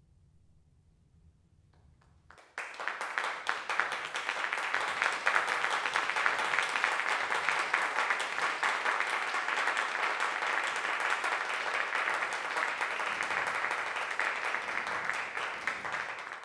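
A brief hush, then audience applause breaks out suddenly about two and a half seconds in and carries on as steady clapping.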